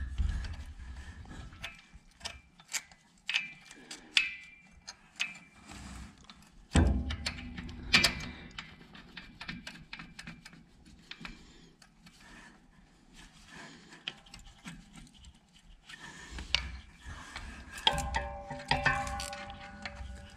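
Hand tools and metal parts clinking and knocking in irregular handling, with a heavier thump about seven seconds in and a struck metal part ringing briefly near the end.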